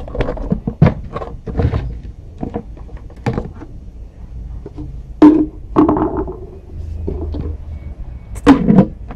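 Plastic lid of an insulated cooler jug lifted off and set down, giving a series of irregular hollow knocks and clunks, the loudest about five seconds in and again near the end. Between them comes handling noise as a hand reaches into the jug for the damp cloth.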